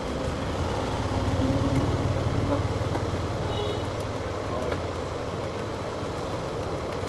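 Steady street traffic noise, with a low vehicle engine rumble growing louder about a second in and then easing off.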